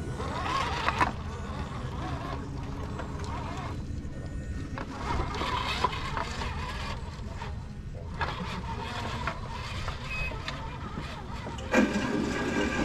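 Axial SCX10.2 Jeep Cherokee RC crawler driving slowly over wooden planks: a faint electric motor and gear whine with a few knocks of the tyres on the boards. Music comes in near the end.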